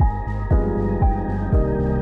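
Background electronic music with a steady beat of about two thumps a second under sustained synth tones.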